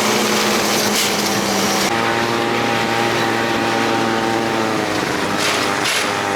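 Buran snowmobile's two-stroke engine running steadily under way, heard from the sled towed behind it; its pitch shifts about two seconds in and again near five seconds as the speed changes.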